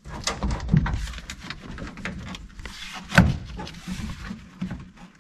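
An interior trim panel being worked into place against the car body: rustling and scraping with scattered light knocks, and one sharper knock about three seconds in.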